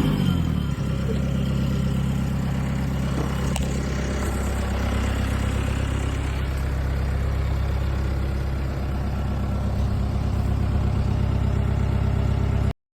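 Small tractor's engine slowing from a higher speed in the first second, then running steadily at a lower speed. It cuts off abruptly near the end.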